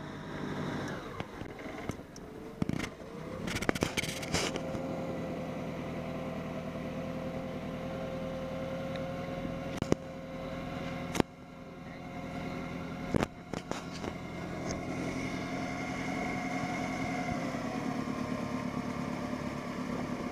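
Small wooden boat's motor running steadily under way, with a few sharp knocks.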